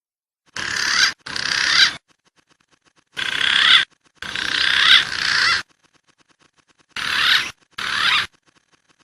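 Recorded wild pigeon calls played as a hunting lure: six whistling, warbling phrases in three pairs, each starting and stopping sharply, with silence between them.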